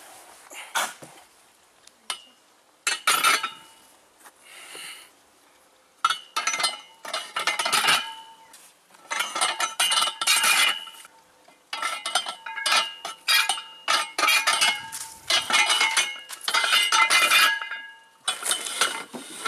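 Metal clinking and rattling from an outdoor bench-press machine as its barbell is pushed up and lowered: the iron weight plates and bar knock against the steel frame, each clink ringing briefly, in irregular clusters.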